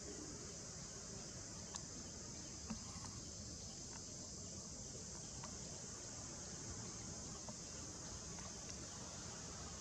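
Steady high-pitched drone of an insect chorus, with a few faint ticks scattered through it.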